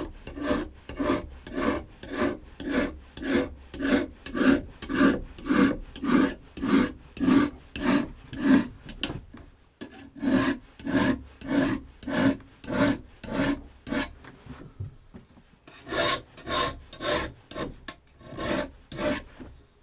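A file stroking back and forth along the rails of a Husqvarna 365 chainsaw guide bar, dressing them flat, at about two strokes a second, with a short pause about ten seconds in and a longer gap around fourteen seconds in. Uneven bar rails are the usual cause of a chainsaw cutting crooked.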